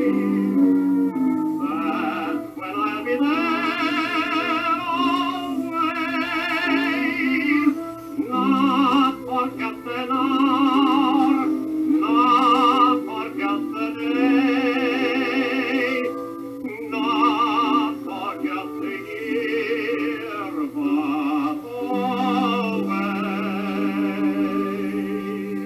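Music: a singer holding long notes with strong vibrato over sustained accompaniment.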